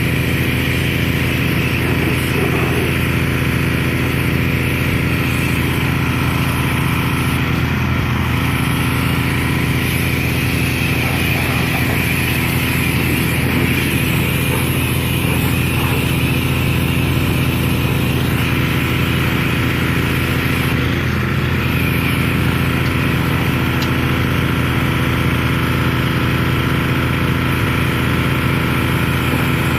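An engine running steadily at a constant speed, with no change in pitch.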